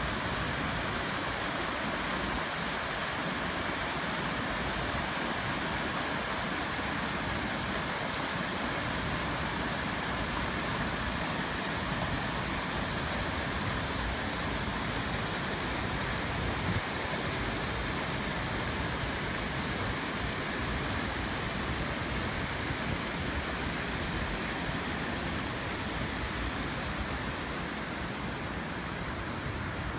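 Mountain creek rushing and splashing over granite boulders in small cascades: a steady, full rush of water that gets slightly quieter near the end.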